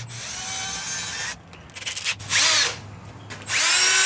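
Milwaukee 18V cordless drill spinning a baseball bat handle chucked in it, in several short runs. There is a spin-up and wind-down about two seconds in, and a loud steady run near the end that stops suddenly.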